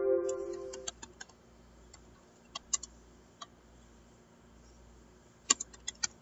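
Computer keyboard typing: scattered single keystrokes, with a quicker run of clicks about five and a half seconds in. At the start, a ringing chime-like tone fades away within the first second.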